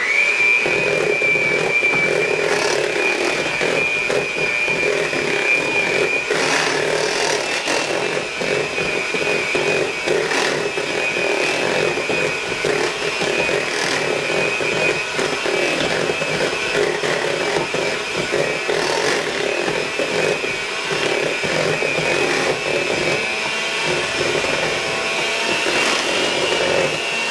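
Electric hand mixer running steadily, its beaters whipping thick mashed potatoes with shredded cheddar in a stainless steel bowl. The motor gives a constant whine under the churning of the mash.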